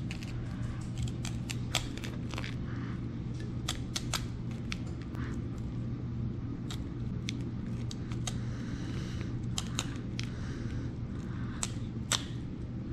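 Kitchen shears snipping through a snapper's fins, with irregular sharp clicks and snips, over a steady low hum.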